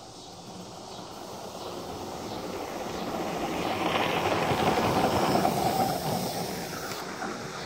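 A ride-on scale live-steam locomotive running past on a backyard track, growing louder to a peak about four to five seconds in and fading as it goes by.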